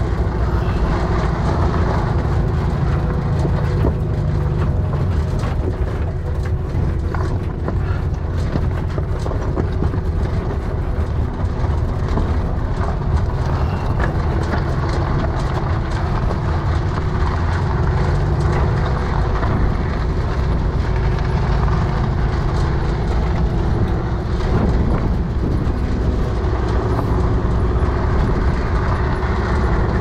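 1950s VW bus's air-cooled flat-four engine running steadily as the bus drives a rough dirt trail, with a deep rumble and many small rattles and clicks throughout.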